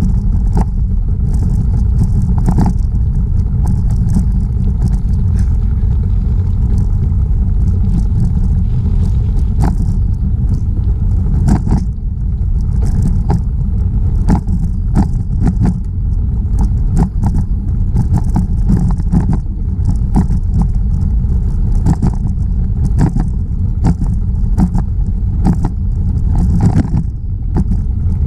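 Steady low wind noise buffeting the microphone of a camera riding on a moving bicycle, with scattered clicks and rattles from the bike over the pavement.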